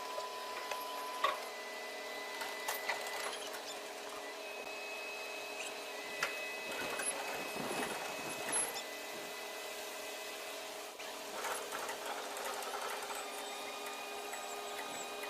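Steady mechanical hum made of several steady tones, with scattered clicks and knocks.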